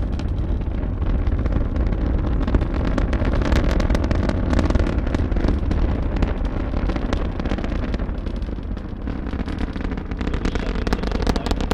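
Space Shuttle Atlantis climbing under its solid rocket boosters and three main engines, heard from a distant viewing site. A deep continuous rumble is laced with dense crackling. It eases slightly about eight seconds in, and the crackle grows stronger near the end.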